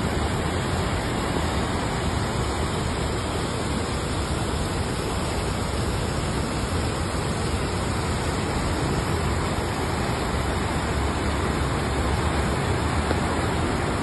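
Flooded river rushing past in a fast, muddy torrent: a steady, unbroken rush of water.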